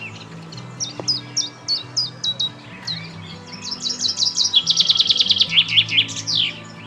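Songbird singing: a run of quick, high, falling notes, then a fast, louder trill and a few falling notes near the end. Soft background music plays underneath.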